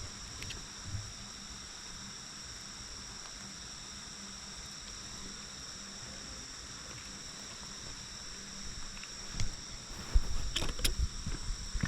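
Steady chorus of late-summer insects, a high ringing in several pitches at once. About ten seconds in, footsteps on a road start, irregular thuds and scuffs.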